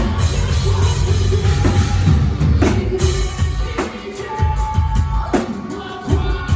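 Rock band playing live at full volume: drum kit, bass and guitars. The heavy low end eases off for a couple of seconds midway, then the full band comes back in.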